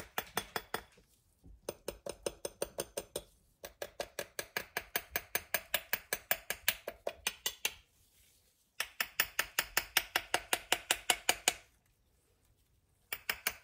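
A metal spoon tapping rapidly on a bath bomb mold to loosen the pressed bath bomb, about five light taps a second in several runs broken by short pauses. The sound of the taps changes as the bath bomb comes loose.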